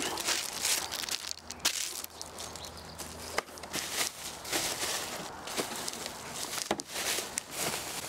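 Plastic wrapping and bubble wrap rustling and crinkling in irregular bursts as wrapped parts are shifted inside a cardboard box, with a few sharp knocks.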